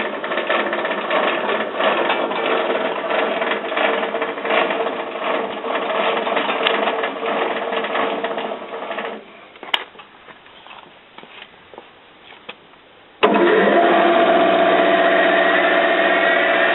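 R-60 band sawmill running with a steady mechanical hum; it drops away about nine seconds in, leaving light clattering, then a louder steady machine sound with a faint rising whine comes in abruptly about four seconds later.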